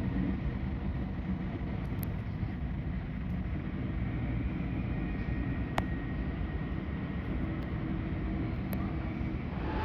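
Steady low rumble of a distant jet airliner's engines, with one sharp click about six seconds in.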